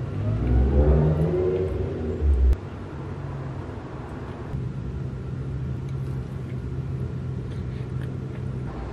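An engine revving up with a rising pitch, cut off abruptly about two and a half seconds in, followed by a steady low hum.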